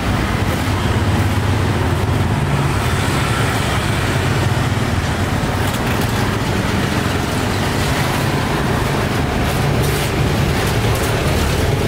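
Steady street traffic noise: motor vehicles running by in a continuous low rumble.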